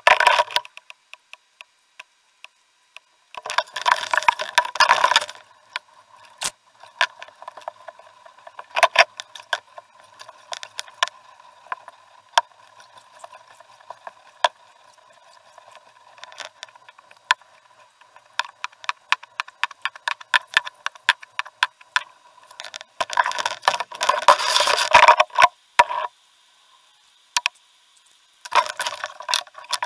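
Knocks, rattles and clicks from a canoe and its gear being handled, with two longer bursts of rushing noise, one about four seconds in and one near the end. A faint steady tone sits underneath throughout.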